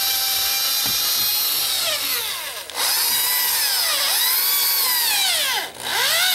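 Electric drill running with its bit dragged sideways through the wood of a door jamb to gouge out a deadbolt strike pocket. The motor's whine sags and recovers again and again under the load, and it stops briefly about halfway and again near the end.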